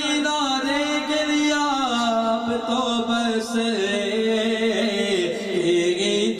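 A man singing an Urdu naat solo with no instrumental accompaniment, holding long notes that bend and slide in melismatic runs.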